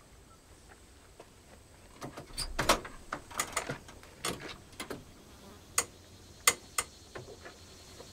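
The truck's door handle and latch clicking and knocking as the door is worked open: a scatter of short sharp clicks starting about two seconds in, a quick cluster first, then single clicks spaced out.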